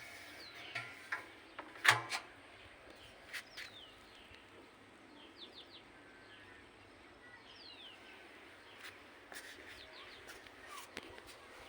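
Birds chirping in short falling calls, with scattered knocks and clicks, the loudest about two seconds in and a cluster near the end.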